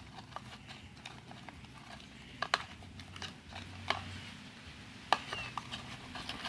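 Slime being kneaded and stirred by hand, with irregular sticky clicks and squelches as it is worked; the sharpest clicks come about two and a half and five seconds in.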